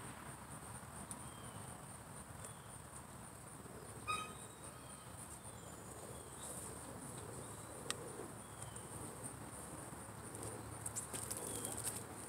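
Faint steady chorus of insects, a high shrill pulsing drone, with a few clicks and rustles of handling near the end.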